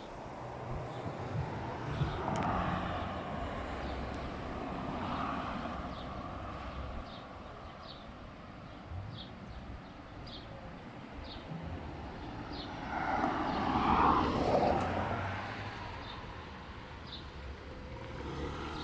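Outdoor road traffic: a steady low rumble with vehicles passing by, a smaller pass early and a louder one later. A faint high chirp repeats about once a second throughout.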